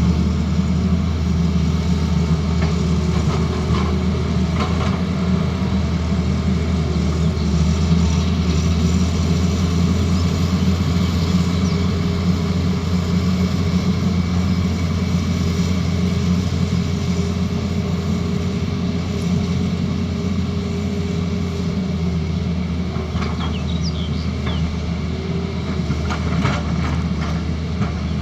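Diesel engine of a Tata Hitachi Zaxis excavator running steadily at a constant low rumble.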